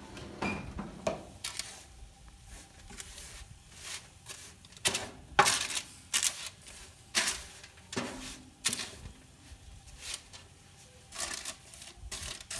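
Wooden spoon stirring rolled oats, almonds and seeds on a parchment-lined baking sheet: an irregular run of dry rustling, scraping strokes with some crinkle of the paper, loudest about five and a half seconds in.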